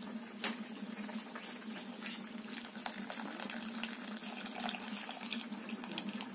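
Wet patter and small crackles of freshly boiled rice being ladled out of its hot, starchy cooking water in an aluminium pot, with a sharp click about half a second in.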